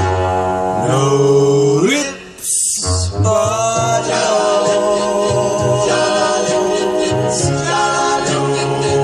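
A man singing a slow love song a cappella, with held notes and slides between pitches and a short break about two and a half seconds in. It is sung inside a car.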